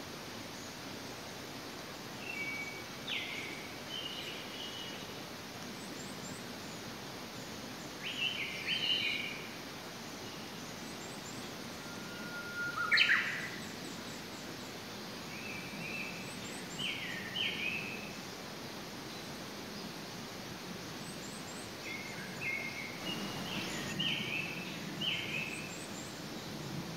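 Wild songbird singing short phrases of a few quick notes, repeated every few seconds, over a steady outdoor noise bed. One phrase near the middle is louder and ends in a quick upward sweep.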